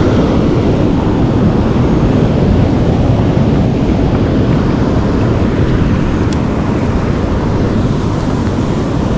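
Steady low rumble of wind buffeting the microphone at sea, with the wash of ocean waves beneath it.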